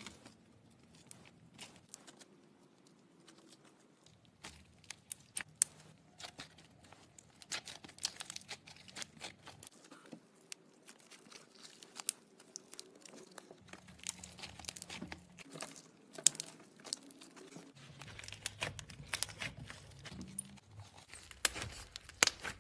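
Hands squeezing, stretching and kneading slime: irregular sticky crackling clicks as the slime is pressed and pulled, growing busier near the end.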